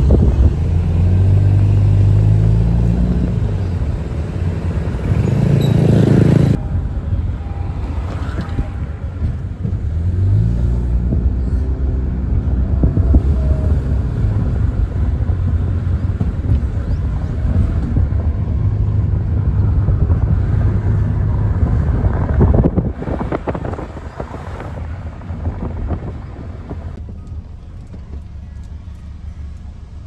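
Car on the road: the engine note rises in steps again and again as it accelerates through the gears, over a steady low road rumble. The sound changes abruptly about six and a half seconds in and again a little over twenty seconds in, then grows quieter toward the end.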